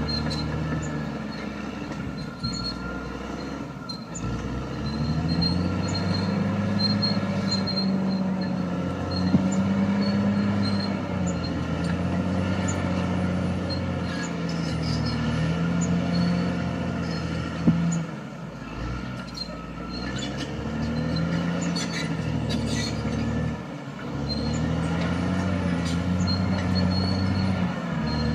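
Caterpillar D6R XL crawler dozer working: its diesel engine labours under changing load, the pitch sinking and recovering several times as it pushes, with a high squeak from the running gear over it and a couple of sharp knocks.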